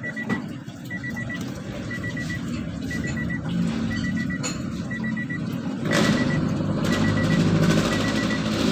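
Electronic warning beeper sounding in short groups of quick beeps about once a second, steady throughout. A louder rustling, scraping noise joins about six seconds in.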